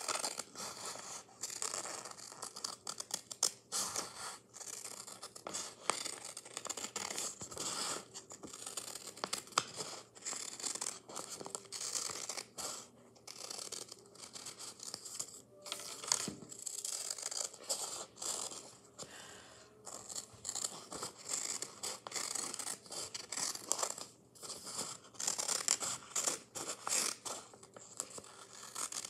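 Scissors snipping through a sheet of paper again and again, cutting out a drawn circle, in short irregular cuts.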